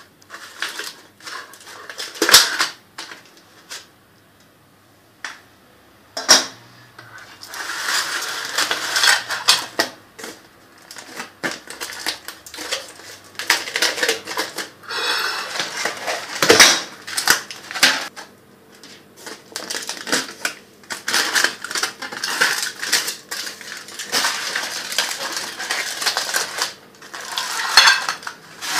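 Metal springform cake pan being unlatched and handled with kitchen utensils: scattered sharp metallic clinks and knocks, the loudest about two, six and sixteen seconds in, between stretches of scraping and rattling.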